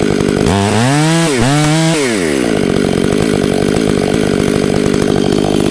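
Chainsaw running at high revs, cutting into a maple trunk during the felling cut. About half a second in, the engine pitch drops and climbs back twice, then it runs steady.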